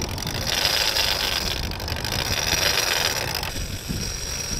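Drag of a large conventional shark reel running, a steady high whine as a hooked shark strips line off it, easing about three and a half seconds in. Wind rumbles on the microphone.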